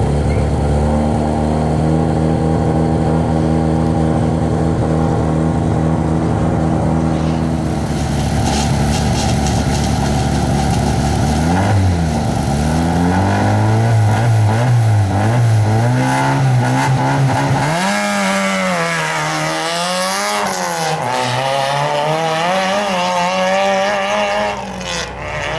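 Peugeot rally car's engine idling steadily, then revved up and down in a series of blips, then pulling away hard with its note rising and falling through the gears.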